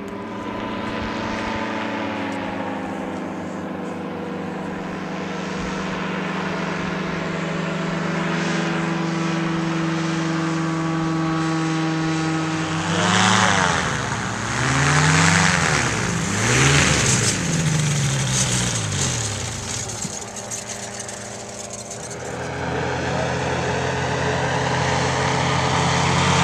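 Powered parachute engines and propellers droning steadily overhead. About halfway through, the engine pitch swings up and down several times and is at its loudest, then settles back to a steady drone that grows louder near the end as a powered parachute comes in low over the field to land.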